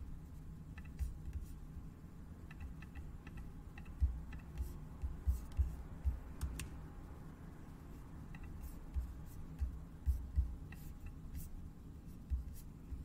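Computer mouse clicking now and then, with several soft low thumps over a steady low hum.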